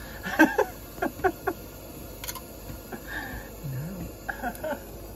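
A metal spoon clinking and scraping against a glass sauce jar and the pan in several quick taps during the first second and a half, over the steady hiss of the gas burner under an Omnia stovetop oven.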